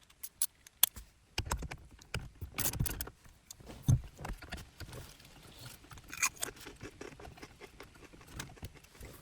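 Ratchet wrench with a 10 mm socket on an extension backing out a radio mounting bolt in a car dashboard: irregular clicks and metal rattles, with a few louder knocks.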